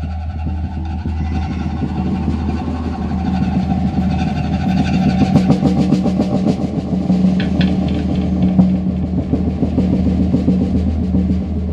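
Drum kit played in fast, dense rolls and fills that grow louder about halfway through, over a steady low hum.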